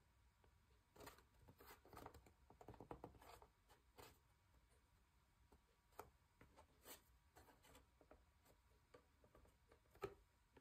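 Near silence, with faint scratches, rustles and light taps of hands pressing and handling a folded chipboard box; the clearest tap comes near the end.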